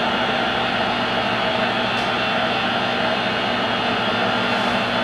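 Monarch 10EE toolroom lathe running, a steady, even mechanical hum with a constant low tone.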